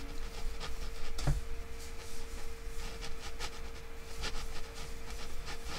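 Metal crochet hook and acrylic yarn scratching and rustling softly as half double crochet stitches are worked, with scattered light ticks and a low thump about a second in. A steady faint hum runs underneath.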